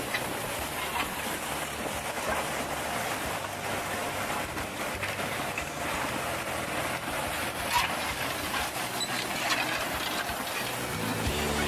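Tume Maximaster 6001 direct drill's disc coulters cutting through stony ground behind a tractor: a steady mechanical rumble and clatter with scattered sharp knocks. Music starts near the end.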